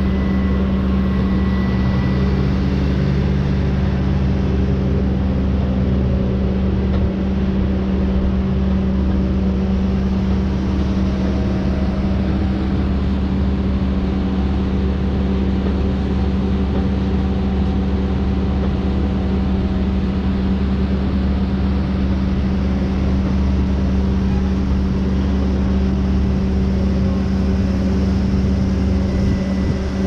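Diesel engine of a Tigercat T234B knuckleboom log loader running steadily, heard from inside the operator's cab as a constant loud drone with a steady hum.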